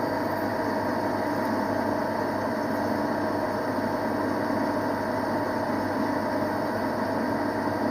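Metal lathe running steadily under power through a parting-off cut, giving a continuous machine hum.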